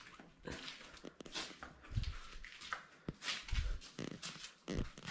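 Faint scattered rustles and clicks of people moving about with a handheld camera, with two dull low thumps, about two seconds and three and a half seconds in, like footfalls.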